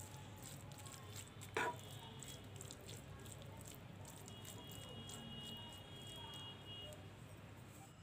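Metal spoon stirring a thick cooked cabbage, potato and pea curry in a frying pan: soft squishing and scraping with many small clicks, and one louder knock about one and a half seconds in.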